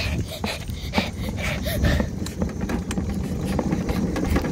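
Homemade wagon rolling fast over rough asphalt: a steady low rumble from its wheels with many small clicks and knocks from the wagon body, sounding like it has an engine.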